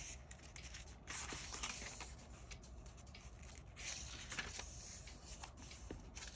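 Paper pages of an A5 planner being turned and smoothed flat by hand: faint rustling and rubbing, with longer rustles about a second in and again around four seconds in.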